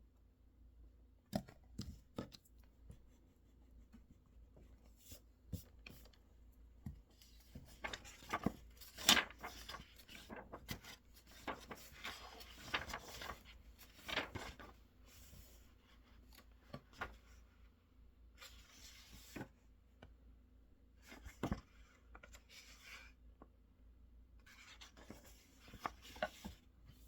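Faint desk-work sounds: stretches of scratching and rubbing with scattered light clicks and taps, the sounds of someone working at a study desk.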